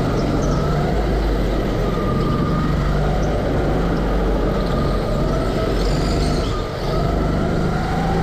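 Go-kart's small petrol engine running hard, heard from the driver's seat, its pitch rising and falling through the corners. It eases off briefly about six and a half seconds in, then climbs again near the end.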